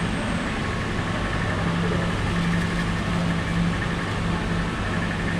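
Steady low machine hum, with a constant pitch and an even background noise.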